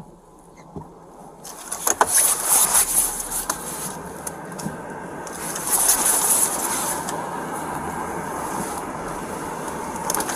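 Rustling and rubbing noise on a body-worn camera's microphone as the officer moves in the patrol car's driver's seat. It starts about one and a half seconds in, with louder scrapes around two and six seconds in, then settles into a steadier rustle.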